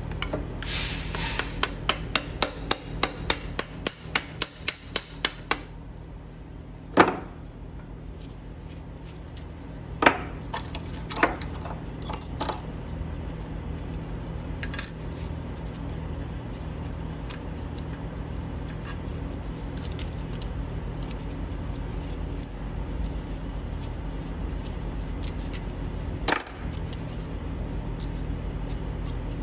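Steel-on-steel tapping and knocking as a new u-joint bearing cap is worked into a truck driveshaft yoke: a quick run of light metal clicks, about three a second for five seconds, then a few single sharp knocks that ring briefly. A steady low hum runs underneath.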